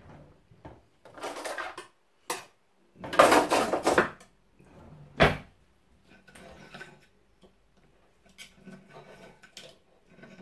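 Knife and fork scraping and clinking against a china plate as cooked rabbit meat is cut off the bone, with two louder rattling scrapes early on and a sharp knock about five seconds in, then quieter scraping.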